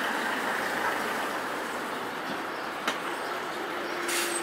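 Scania Citywide Hybrid city bus standing at a stop with a steady hum. A sharp click comes about three seconds in, followed by a faint steady tone, and a short hiss of released air sounds near the end as the bus readies to pull away.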